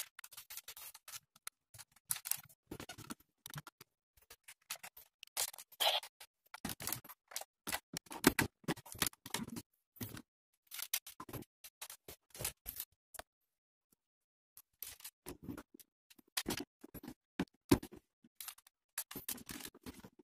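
Hard plastic toys being handled and moved about, giving irregular clicks, clacks and short scrapes, with a pause of about a second midway.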